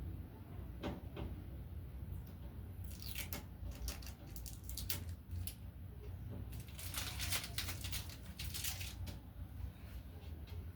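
Packaging rustling and crinkling in short bursts, with scattered light knocks and clicks, as a new cooker is unwrapped. The rustling is busiest through the middle of the stretch.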